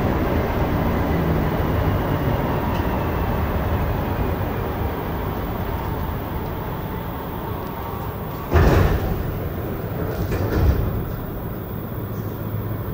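Interior of a Montreal Metro Azur rubber-tyred train slowing into a station: steady running rumble with a faint falling whine. About two-thirds of the way through, a sudden loud burst as the sliding doors open, with a smaller one about two seconds later.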